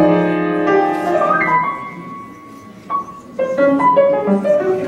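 Grand piano played solo. A full chord rings and dies away over about two seconds, then a single note sounds, followed by a short run of separate notes.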